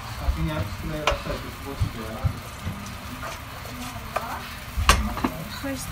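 Oil sizzling in a frying pan while a wooden spatula stirs and scrapes across it, with a few sharp knocks of the spatula against the pan.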